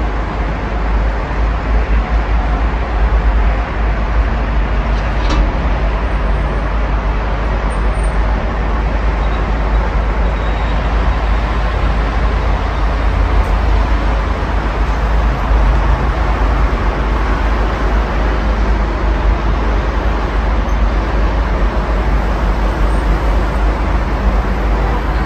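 Steady road traffic from a busy multi-lane road, cars and lorries passing, with a heavy low rumble.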